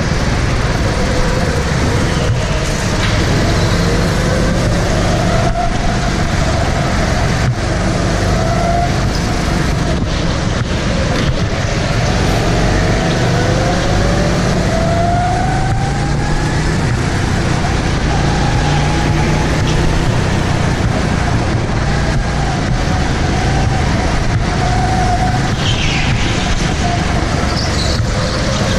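Go-kart engines running hard, heard from onboard the kart. The engine note rises several times as the kart accelerates out of corners, over a constant low rumble.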